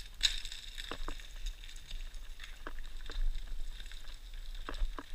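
Boots and a trekking pole clicking and scraping on loose rock and scree, a dozen or so irregular knocks, over a steady low rumble of wind on the microphone.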